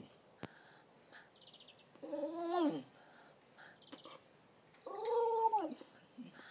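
Bulldog giving two drawn-out, pitched yowls about three seconds apart, each rising and falling in pitch: its trained attempt to "say Mama".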